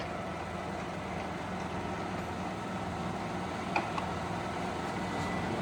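American 16 x 54 engine lathe running steadily, its carriage and cross slide travelling together under power feed.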